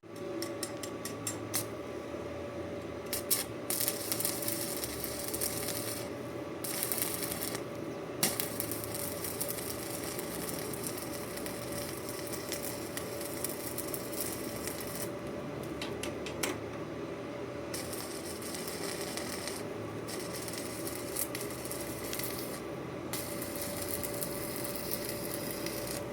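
Electric arc welding: a crackling hiss that comes in stretches of a few seconds with short pauses between them, over a steady hum.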